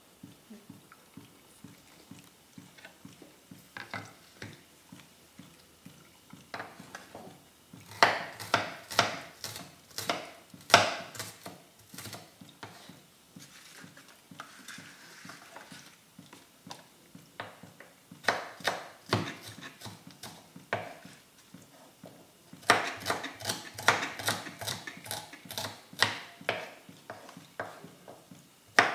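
Kitchen knife slicing shallots and garlic on a wooden cutting board: runs of quick sharp taps, several a second, with pauses between runs.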